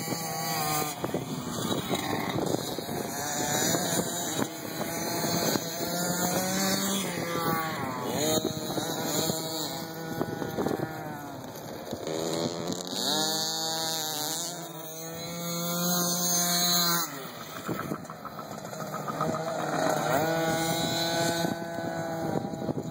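Several small two-stroke youth dirt bikes revving around a track, their engines rising and falling in pitch as the riders throttle and shift. One bike winds up loudest from about 13 to 17 seconds in.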